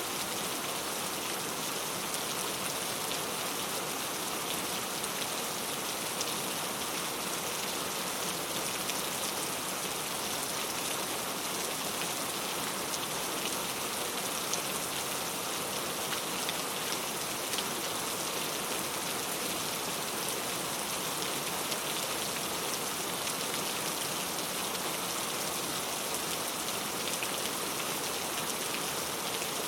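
Steady rain falling, an even hiss with scattered drop taps, with no change in intensity.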